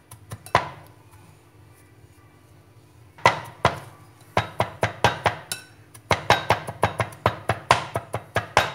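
Large kitchen knife mincing garlic on a wooden cutting board: sharp chops of the blade on the board. After a first chop there is a pause of about two seconds, then the chopping resumes and settles into a fast, steady rhythm of about five chops a second.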